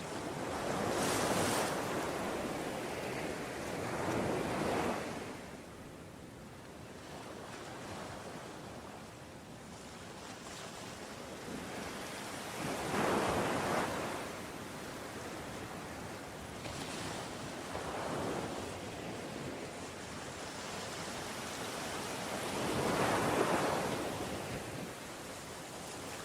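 Ocean waves surging and breaking: five swells of rushing surf at uneven intervals, with a quieter wash in between.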